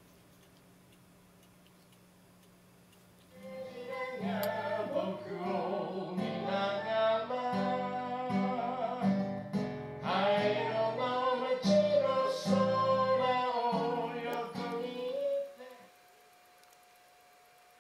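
Folk song sung to acoustic guitar, starting a few seconds in and cutting off abruptly near the end, with faint room tone before and after.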